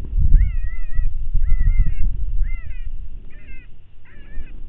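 Electronic predator call playing a rabbit distress sound: a run of about five wailing cries, each bending in pitch, under loud wind rumble on the microphone.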